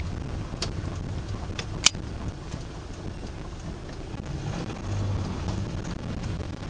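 Car driving through city traffic, heard from inside the cabin: a steady low rumble of engine and tyres on the road. A few short sharp clicks come in the first two seconds, the loudest about two seconds in.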